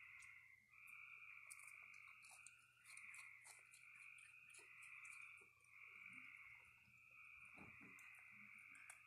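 A faint, steady nighttime chorus of calling creatures: a dense, continuous trill in two pitch bands that dips briefly every second or two. Scattered small crunching clicks come from raccoons chewing food.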